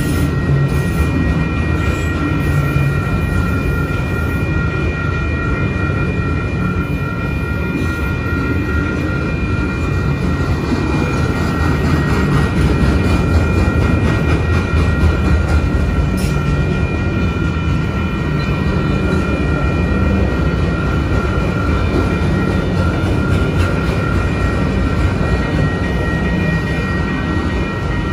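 Freight train's autorack cars rolling past a grade crossing at speed: a loud, steady rumble of steel wheels on rail, with a few steady high tones above it.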